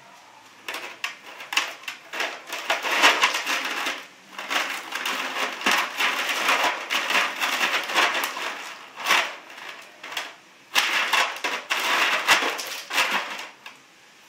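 Ice cubes clattering and rattling in a plastic tub as a Siberian husky digs through them with its front paws, in several long bursts with short breaks about four and ten seconds in.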